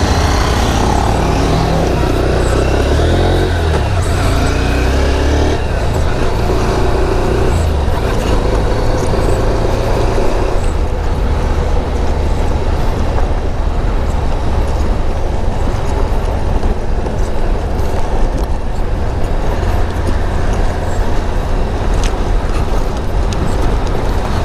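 Motorcycle engine running while riding, under a heavy low wind rumble on the helmet-mounted microphone. In the first several seconds the engine note rises as the bike accelerates away, then it settles into a steady cruise.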